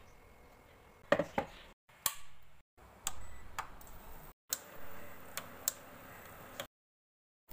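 Light clicks and taps of kitchen utensils and containers during food preparation, heard in short clips cut together with abrupt drops to silence between them; the loudest knocks come about a second in.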